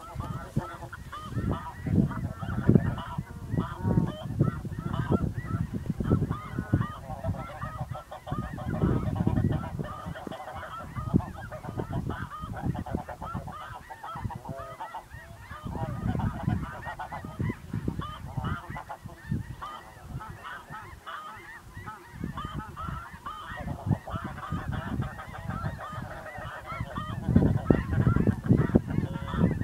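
A large flock of snow geese calling: many overlapping short honks all at once, with low rumbles swelling and fading beneath.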